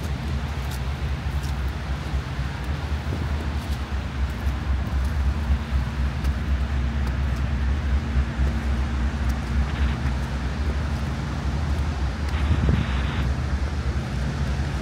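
Wind buffeting the microphone in a fluctuating low rumble, over a steady background of city traffic.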